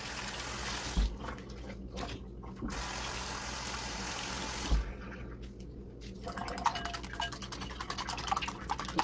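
Kitchen tap running as hands are rinsed under it at the sink, with two short interruptions, stopping about five seconds in. About a second later a wire whisk starts beating eggs in a glass bowl: rapid clicking and tapping against the glass.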